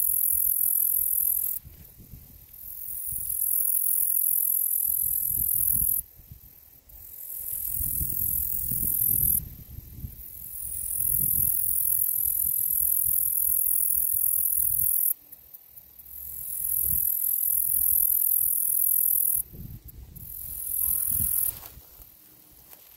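Male gladiator meadow katydid (Orchelimum gladiator) singing by stridulation: very high-pitched buzzing phrases of a few seconds each that swell and then cut off sharply, repeated about six times with short pauses. A low rumble runs underneath.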